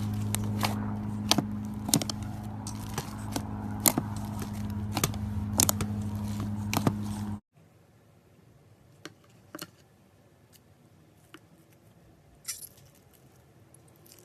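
Cutting into slime-filled stress balls: sharp clicks and crackles over a steady low hum. Both cut off suddenly about seven seconds in, leaving only a few faint clicks.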